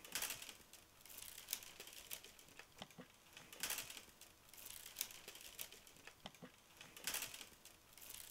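Faint irregular rustling and crinkling with scattered small clicks, swelling every second or two.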